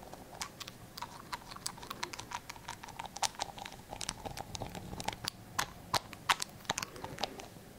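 Close-up ASMR hand sounds: an irregular, quick run of crisp clicks and taps from fingers and hands moving right by the microphone, growing denser and louder past the middle.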